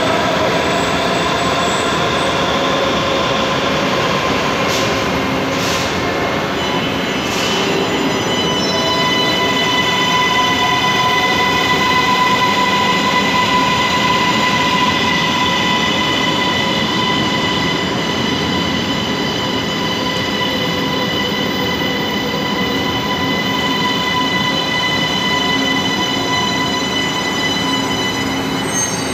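CSR-built electric metro train's motors whining loudly, the whine falling in pitch over the first several seconds. Three short hisses of released air come between about five and eight seconds in. After that a steady high-pitched whine of several tones holds.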